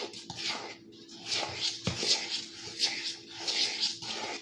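Batter being stirred in a bowl, with repeated swishing, scraping strokes roughly two a second over a faint steady hum.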